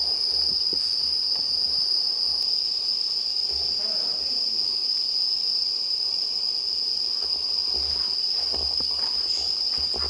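Night insects chirring in a steady, high-pitched chorus that never breaks.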